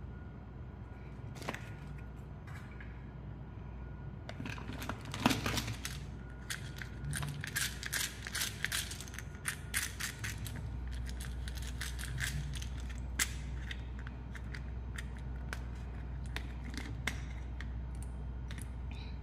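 Plastic candy toys and containers being handled: a quick run of sharp clicks, rattles and crinkles, densest from about four to twelve seconds in, then sparser, over a steady low hum.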